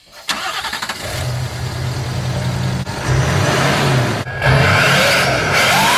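Turbocharged truck engine revved up from a low run, with a turbo whistle rising in pitch during the loudest stretch, from about four and a half seconds in.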